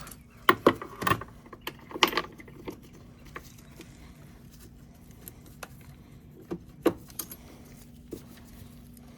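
Metal hand tools clinking as a socket is tried on the bolt: several sharp clinks in the first two seconds, then two more near seven seconds. A faint steady hum runs underneath.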